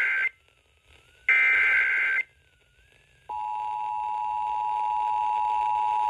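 Emergency Alert System tones from an FM broadcast, heard through a Midland weather radio's speaker. The tail of one digital SAME header burst comes first, then a third header burst about a second in. A little past halfway the steady two-tone attention signal starts.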